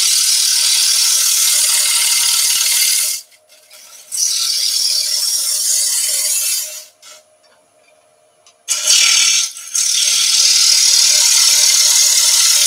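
A 3/8-inch bowl gouge taking light pull cuts across the face of a sycamore platter spinning on a wood lathe at about 1,200 rpm: a loud, hissing rasp of shavings coming off in three passes. There are two short near-silent pauses, about three and seven seconds in, where only the lathe's faint steady hum is left.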